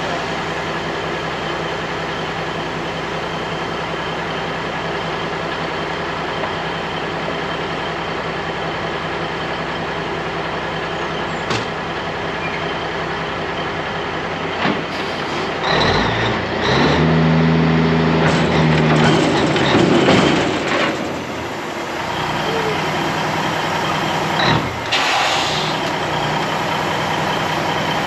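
Heavy diesel semi-truck engine idling steadily. About two-thirds of the way through, a louder, deeper engine note is held for about five seconds before dropping back to idle, and near the end there is a short hiss of air.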